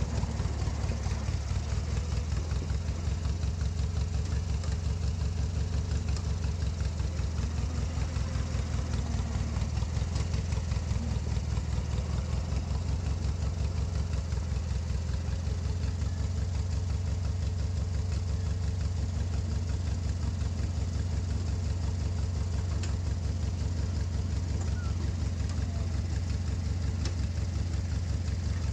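Westwood ride-on mower's engine idling steadily with an even, rapid pulsing beat.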